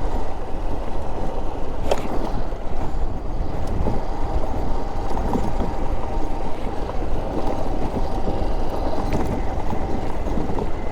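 Honda XR single-cylinder dual-sport motorcycle riding along a dirt road: steady engine running mixed with heavy wind rumble on the microphone.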